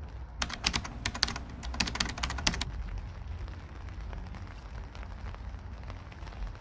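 A quick, irregular run of keyboard-typing clicks lasting about two seconds, over a low steady rumble.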